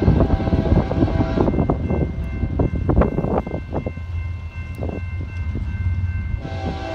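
Approaching diesel locomotive's air horn sounding: one blast ends about a second and a half in and another starts near the end. Gusty wind rumble on the microphone runs underneath.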